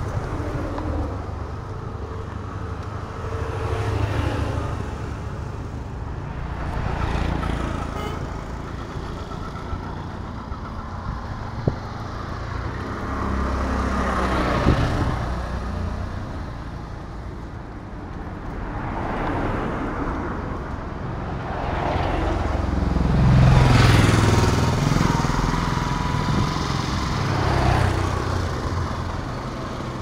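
Roadside traffic: a series of motor vehicles passing close by one after another over a steady low traffic rumble. The loudest pass comes about four-fifths of the way through.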